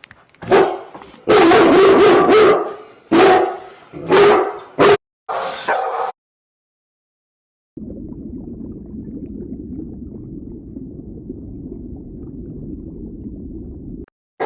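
A dog barking and yelping, a quick run of loud calls over about six seconds. After a short pause comes a steady low rumble lasting about six seconds.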